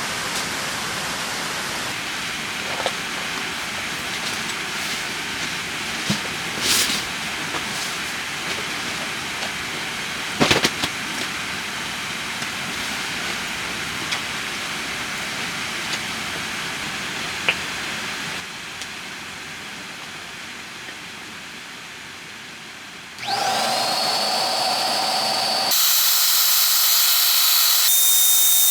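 Steady hiss of falling rain with a few sharp knocks, then about 23 seconds in a small electric motor starts with a rising whine and runs on steadily, its sound turning higher-pitched and thinner a few seconds later.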